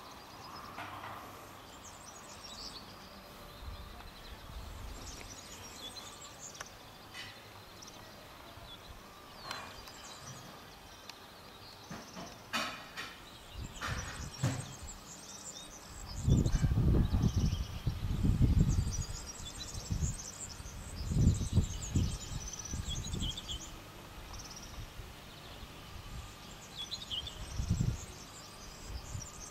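Outdoor ambience with small birds chirping and singing throughout. Several loud, low rumbling bursts come about halfway through and again near the end.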